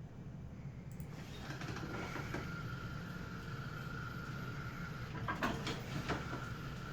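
Roomba robot base driving at slow speed, its drive motors giving a steady whine over a low hum, with a few sharp knocks about five to six seconds in.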